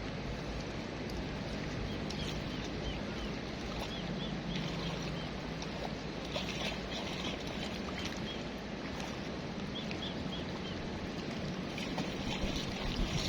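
Steady rush of river water and wind on the microphone, with short high bird chirps coming in small groups every few seconds.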